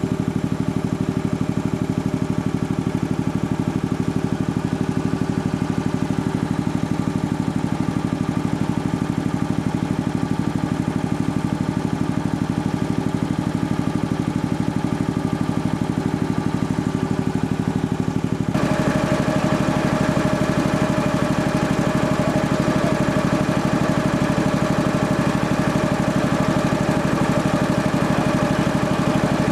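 Sperre HV2/200 two-stage reciprocating air compressor running steadily on test, with a fast even beat from its strokes. About two-thirds of the way through the sound changes abruptly, becoming brighter with a higher steady hum.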